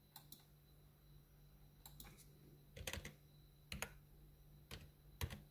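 Faint, irregular clicks, some in quick pairs, over a low steady hum in near quiet.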